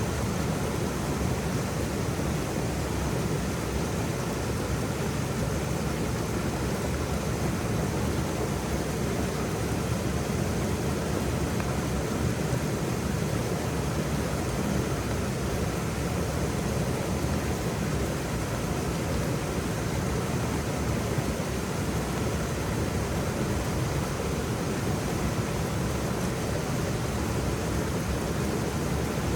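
A waterfall's steady rushing, an even noise without breaks or changes.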